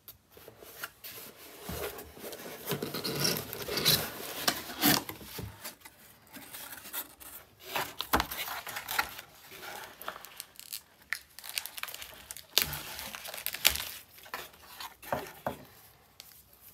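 Cardboard mailer box being torn open and unfolded by hand: irregular ripping, rubbing and scraping of cardboard, with sharp taps and knocks as the flaps are handled, busiest in the first few seconds.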